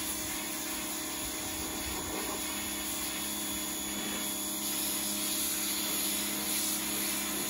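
Electric pressure washer running steadily, its motor and pump humming under the hiss of the water jet spraying onto a carpet floor mat.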